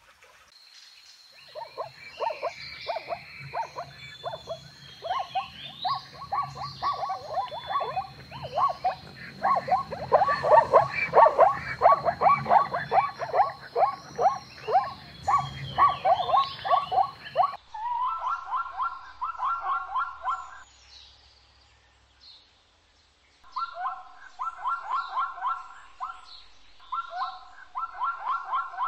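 Many rapid, overlapping bark-like animal calls over a steady high whine, breaking off suddenly about two-thirds of the way in. They are followed by three short bursts of quick, yelping barks from a zebra.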